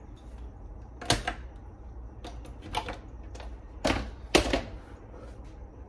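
Several separate sharp knocks and clicks of kitchen items being handled on a counter, the loudest two close together about four seconds in, over a steady low hum.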